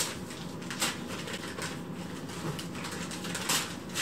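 Packing paper crinkling and rustling as a paper-wrapped picture frame is handled and unwrapped, with irregular small crackles and a louder crackle about three and a half seconds in.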